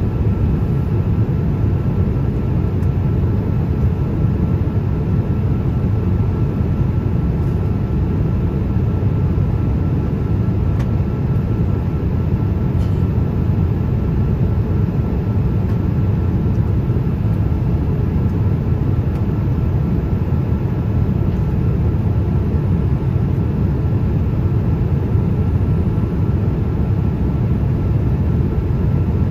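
Steady cabin noise inside a Boeing 787-8 airliner in flight: an even low rumble with a faint steady whine above it.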